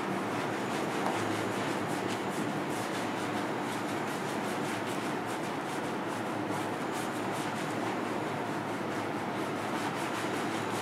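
Steady rushing noise with a soft, irregular scratchy scrubbing on top: hands working shampoo lather into a person's hair at a salon wash basin.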